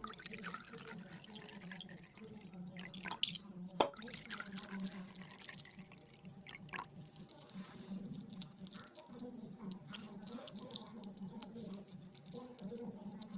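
Many small, irregular wet clicks and drips.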